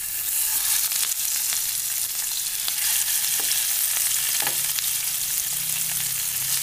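Marinated fish sizzling and spattering in hot coconut oil in a non-stick frying pan, a steady hiss with scattered crackles as more fish are laid in.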